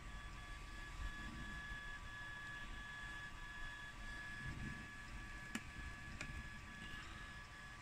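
A steady high-pitched electrical whine that breaks off briefly at an even beat, over a faint hiss, with two sharp clicks in the second half.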